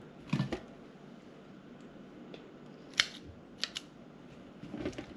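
A few scattered sharp clicks of small objects being handled, over low room noise: one near the start, a louder one about three seconds in, then a quick pair.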